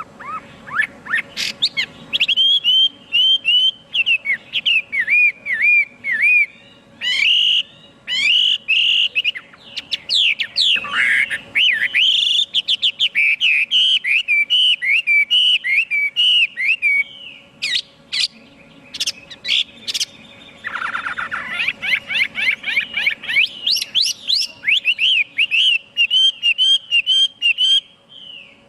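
Chinese hwamei singing a long, loud song of rapid whistled notes, quick up-and-down slurs repeated in runs, with only brief pauses between phrases.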